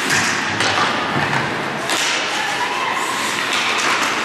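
Ice hockey play in an indoor ice rink: skate blades scraping the ice, with several sharp knocks and thuds from sticks and puck.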